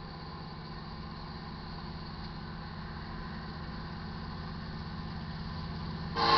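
Low diesel rumble of an approaching freight train's locomotives, growing slowly louder, then the lead EMD SD70ACe locomotive's air horn cuts in suddenly and loudly near the end.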